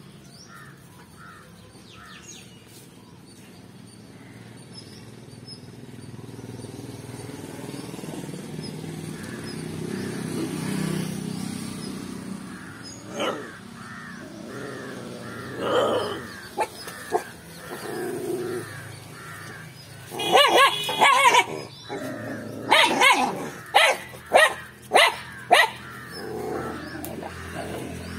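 Young dogs barking and yapping as they play-fight: a few sharp barks around the middle, then a quick run of loud barks in the last third. Earlier, a passing vehicle's low rumble swells and fades.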